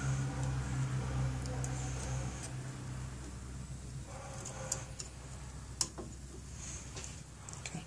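Light metallic clicks and ticks as piston ring expander pliers spread a compression ring and it is worked onto an aluminium piston, with a few sharp clicks in the second half. A low hum drops away about two and a half seconds in.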